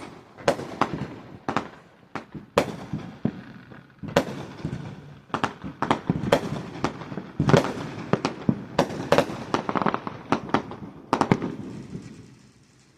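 Fireworks going off in quick succession: many sharp bangs and pops at irregular intervals, with crackle between them. They thin out in the last second or so.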